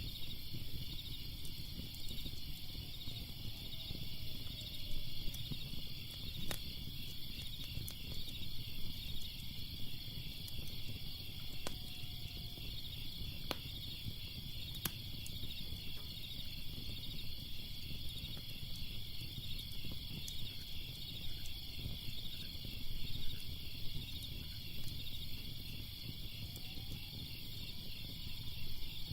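Fire crackling with a low, even rumble and a few sharp pops, under a steady, rapidly pulsing chorus of crickets.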